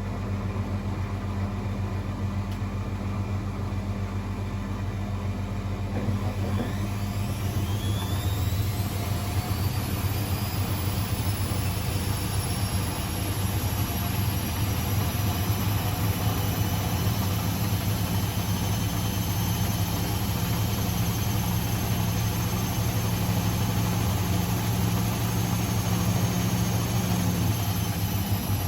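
Old Blomberg 240W washing machine running with a steady low hum. About six seconds in, its motor whine rises over a few seconds as the drum speeds up, holds steady, then eases down slightly near the end.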